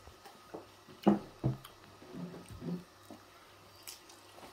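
A few light clicks and knocks of serving utensils against a plate and serving dish as food is served, the two loudest close together about a second in.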